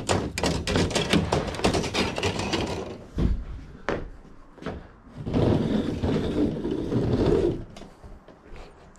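Suspended ceiling tile pushed up and shifted in its metal grid: rapid rattling clicks for about three seconds, a thump, then a longer scraping rustle that stops about seven and a half seconds in.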